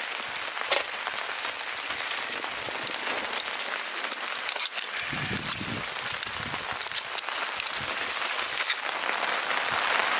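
Wood cooking fire crackling: a dense hiss with many scattered sharp pops, and a low rumble about five seconds in.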